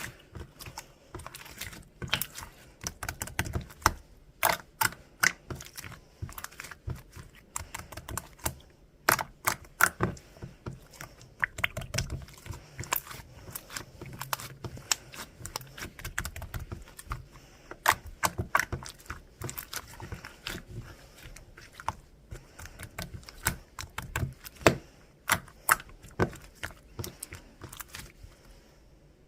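Clay slime being squished and worked, giving dense, irregular sharp clicks and pops.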